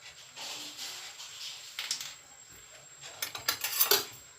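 A metal spoon scooping tomato paste and clinking and scraping against the cookware. A hissing rush comes first, then a run of quick metallic scrapes and clinks, loudest near the end.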